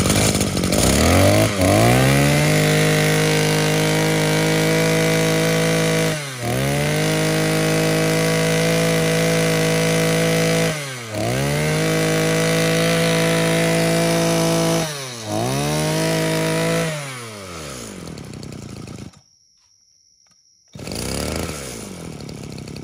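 Maruyama MB2300 23cc two-stroke brush-cutter engine running at high revs. Its pitch climbs in the first two seconds and holds steady. Three times the revs drop briefly and come back up, and about 17 seconds in it falls away and stops. The engine sounds healthy, its running sound still very good.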